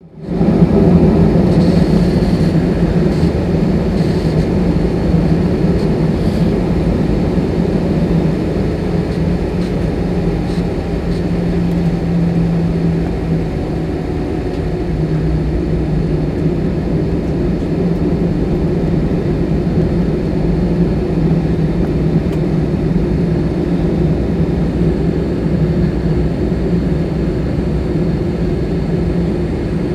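Inside the cabin of an Airbus A319 taxiing: the jet engines at low thrust give a steady cabin hum with a strong low drone.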